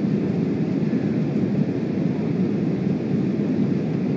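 Steady low rushing cabin noise of a jet airliner in flight, the engines and airflow heard from a window seat, with no changes or distinct events.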